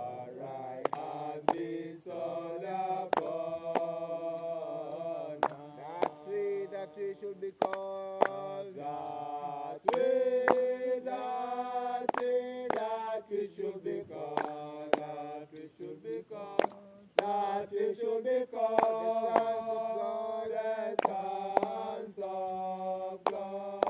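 Voices chanting a slow Bobo Shanti Rastafari prayer-hymn, each note held long before moving to the next. Sharp clicks are scattered through it.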